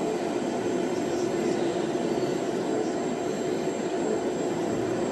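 Steady drone of an MRT train running on the line, a constant low hum that neither rises nor falls.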